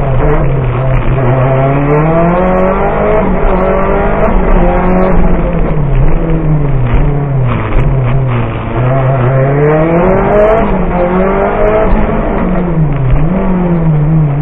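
Lancia Delta Evo rally car's engine heard from inside the cabin, revs climbing and dropping back several times as the car accelerates and slows through the course.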